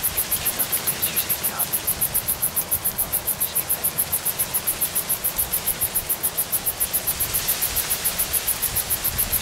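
Steady hiss of wind and rustling in dry cornstalks, under a fast, even, high-pitched pulsing of about six beats a second.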